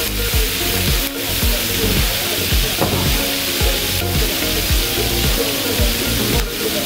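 Food frying and sizzling in a large paella pan, a steady hiss, with background music and a regular beat underneath.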